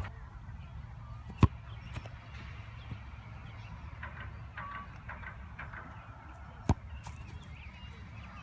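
Two sharp thuds of a soccer ball being struck, the first about a second and a half in and the second about five seconds later, as shots are taken at the goal's metal posts and crossbar.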